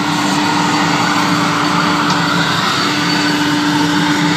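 Electric wet grinder running: a steady motor hum, unchanging throughout, over a constant background din.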